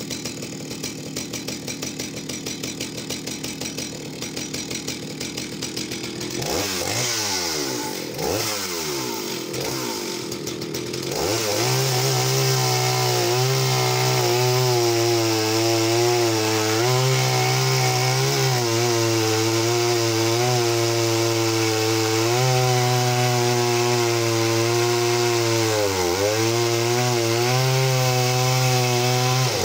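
Vintage Jonsered 80 two-stroke chainsaw idling, then revved up and down a few times. From about twelve seconds in it is held at full throttle, cutting into a large log, with one brief dip in revs near the end. It runs steadily under load without missing a beat.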